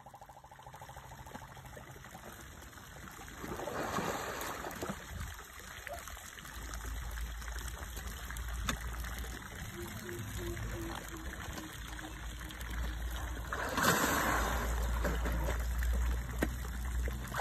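Asian elephants wading in a pond, the water sloshing and trickling around them, with louder swashes about four seconds in and again near the end as one elephant turns through the water. A low rumble runs under it from a few seconds in.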